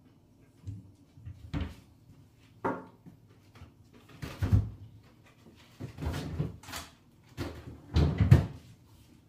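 Kitchen handling sounds: a string of separate knocks and bumps as objects are moved and set down, with a refrigerator door opened near the end, where the loudest bumps fall.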